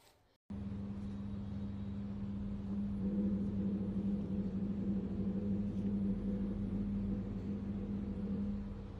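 Steady electric hum of a small motor, starting abruptly and growing louder about three seconds in, with its main tone dropping away near the end.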